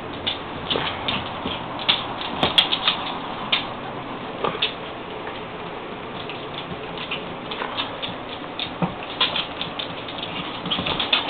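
Puppies and wolves scuffling in play: a patter of many irregular quick taps and scrapes, like paws and claws scrabbling.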